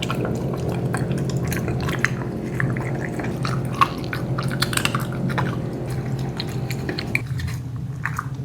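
Dogs eating wet dog food, with irregular wet clicks and smacks of lapping and chewing from the bowl, over a steady low hum that stops about seven seconds in.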